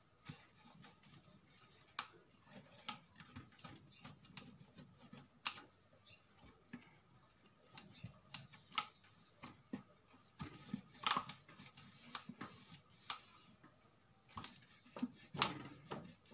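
Hand-scrubbing the underside of a plastic blender jug around its metal blade coupling with a sponge: irregular rubbing with light clicks and taps of the plastic, louder in short spells about two-thirds of the way in and near the end.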